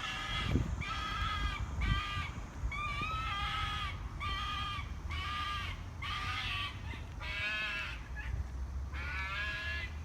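An animal crying out over and over: short, shrill wailing calls about once a second, some bending up and down in pitch, that sound like a bird being attacked. A low rumble runs underneath.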